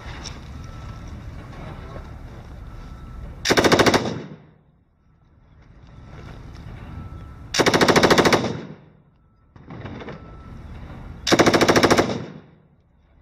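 Belt-fed machine gun firing three short bursts of automatic fire, about four seconds apart. The middle burst is the longest, about a second.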